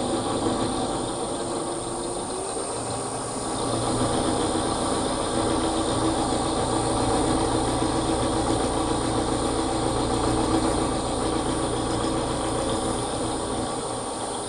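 Milling machine spindle running steadily as an end mill takes a 1 mm deep cut along a recess in a metal workpiece. The drone gets louder from about three and a half seconds in.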